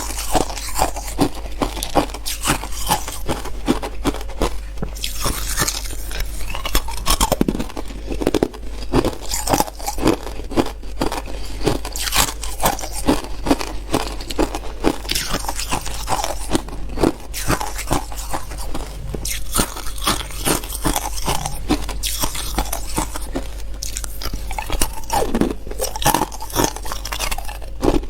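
Hard clear ice being bitten and chewed close to the microphone: a continuous run of sharp, brittle crunches, several a second.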